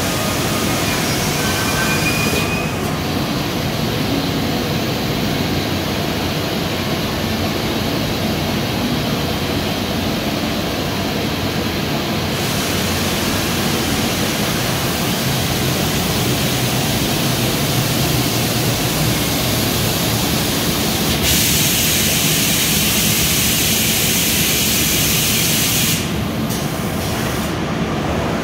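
HOMAG Optimat BOF 311 CNC router-machining centre running a job on a wooden panel: a steady, loud mechanical noise of spindle, gantry drives and dust extraction. A faint rising whine sounds in the first few seconds, and the noise turns brighter and hissier for about five seconds near the end.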